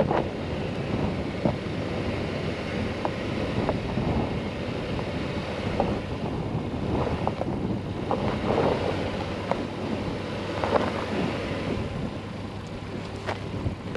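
Honda Ridgeline's V6 engine running under load as its tyres scrabble on loose gravel and rock, with scattered clicks of stones, while it struggles for grip on a rocky ledge on highway tyres. Wind buffets the microphone.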